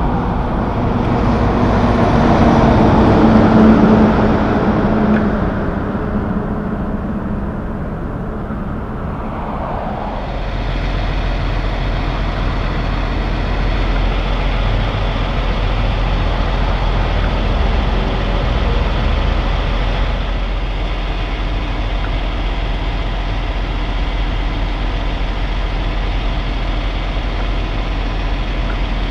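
A vehicle passes on the road, a rushing engine-and-tyre sound that swells a few seconds in and fades away. About ten seconds in it gives way to the steady low hum of a diesel semi-truck idling.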